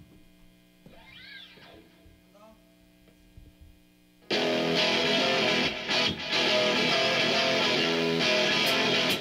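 Rock band starting a song. For about four seconds there is only faint amplifier hum and a few sliding guitar notes. Then the full band comes in suddenly and loudly, with distorted electric guitars over drums, and drops out for two brief breaks about a second and a half later.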